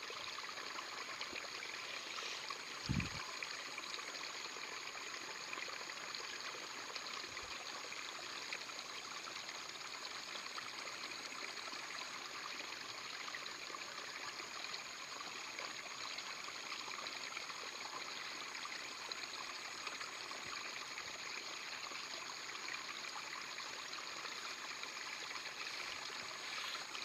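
Steady rushing and trickling of a small stream's flowing water, with one brief low thump about three seconds in.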